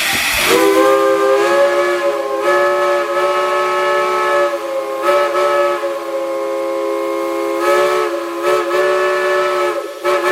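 Chime steam whistle blown on live steam: a brief rush of steam hiss, then a steady multi-note chord held in one long blow with several short dips where the valve is eased and reopened, cut off at the end.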